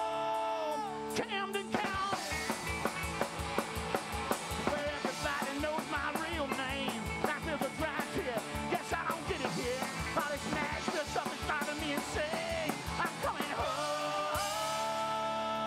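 Live rock and roll band with upright bass, electric guitars and drums: a held sung note ends about a second in, then an instrumental break with guitar over a steady beat, and singing comes back near the end.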